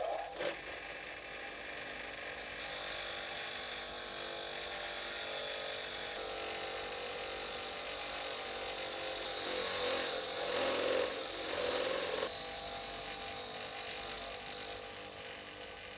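A power tool running steadily and abrading the steel of an old adjustable wrench. Its sound changes abruptly about three seconds in and again around nine and twelve seconds.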